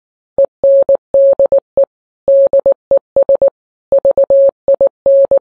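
Morse code: a single steady electronic tone keyed on and off in a run of short and long beeps.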